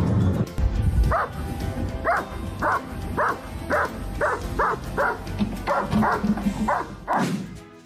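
A dog barking repeatedly, about a dozen short barks at roughly two a second, starting about a second in and stopping near the end.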